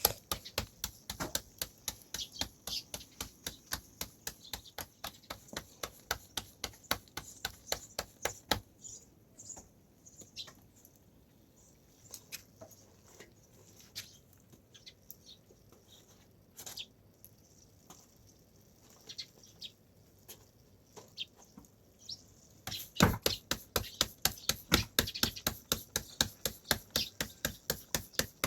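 Rapid, evenly repeated sharp knocks, about four or five a second, breaking off about a third of the way in to a few scattered knocks, then starting again more loudly near the end.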